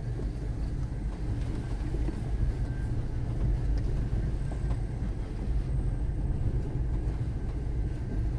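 A vehicle driving on a dirt road, heard from inside the cabin: a steady low rumble of engine and tyres.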